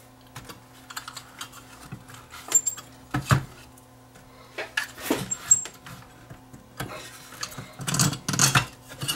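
Scattered clicks, scrapes and knocks of hands working a sealed lead-acid battery out of a UPS's sheet-metal chassis, loudest near the end. A faint steady hum runs underneath.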